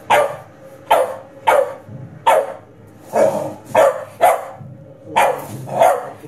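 Staffordshire bull terrier barking repeatedly at a cardboard box, about nine sharp barks, one every half second to a second.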